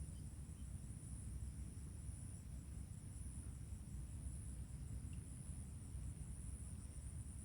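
Insects chirring steadily in a high-pitched drone with a slow pulse of about one swell a second, over a low rumble.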